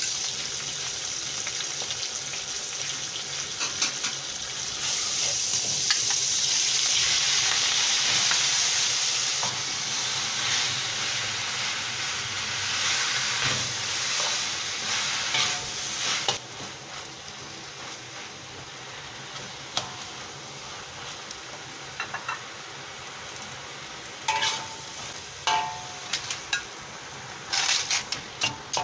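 Stir-frying in a carbon-steel wok: hot oil sizzling while a metal spatula scrapes and tosses the food. The sizzle swells about five seconds in as the napa cabbage goes in, then falls away abruptly about sixteen seconds in, leaving intermittent spatula scrapes and clinks against the wok, busiest near the end.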